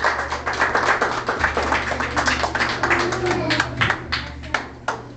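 A small group clapping by hand, the claps thinning out and stopping near the end.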